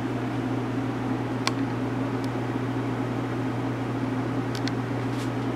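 Steady electrical hum and airy fan noise of running grow-room equipment, with a low, even drone and a couple of faint ticks.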